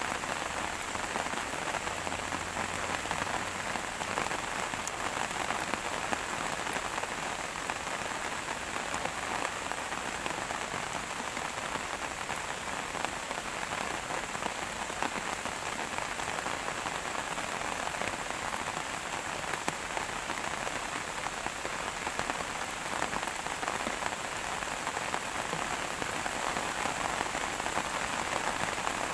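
Steady rain falling: an even, continuous hiss sprinkled with faint ticks of single drops.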